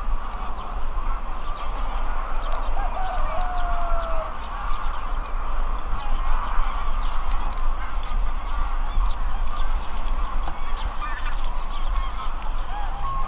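A flock of geese calling: many overlapping honks, steady throughout, over a constant low rumble.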